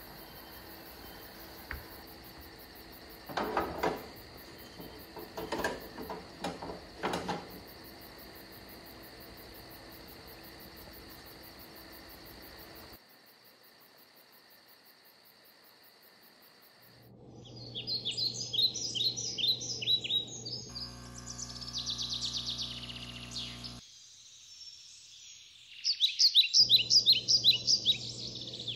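A handheld butane torch hissing steadily as it lights a log, with a few knocks a few seconds in. After a short quiet stretch, birds chirp in quick repeated trills over a low hum; the chirping is loudest near the end.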